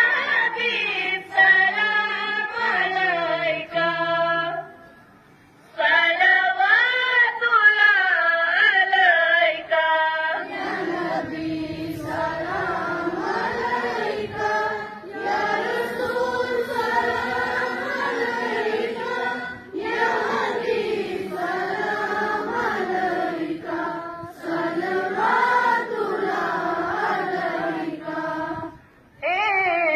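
Schoolgirls singing together in unison. For the first ten seconds it comes in short phrases with brief pauses, then it becomes a fuller chorus that carries on without a break.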